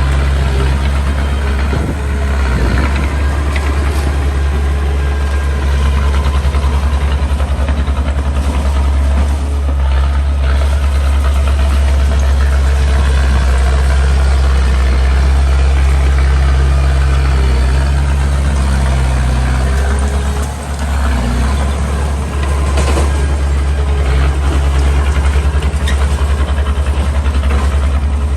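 Small bulldozer's diesel engine running steadily, with a brief dip in level about two-thirds of the way through.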